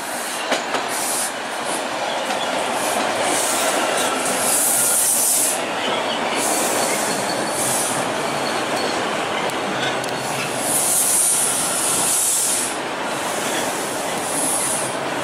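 A Toronto Transit Commission T-1 subway train passing close by on open-air track: a steady rumble of steel wheels on rail, with high hissing from the wheels that comes and goes. A couple of sharp clicks sound about half a second in.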